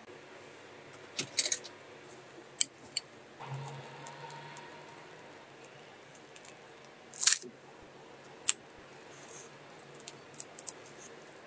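Quiet food-handling noises from pastry work: a few sharp clicks and taps, a short crunchy crackle about seven seconds in, and a brief faint hum near four seconds.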